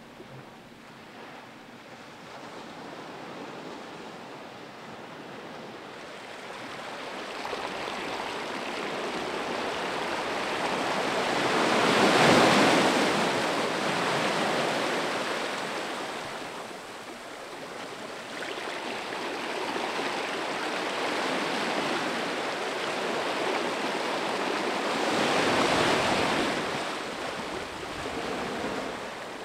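Small sea waves breaking and washing up onto a sandy beach. The surf is faint at first, then swells louder twice: about halfway through and again near the end.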